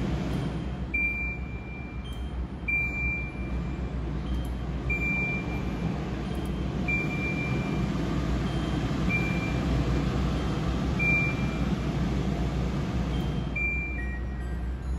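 Touch control panel of a curved-glass chimney range hood beeping at each button press: seven short high beeps about two seconds apart, over a steady low rumble of the running hood fan.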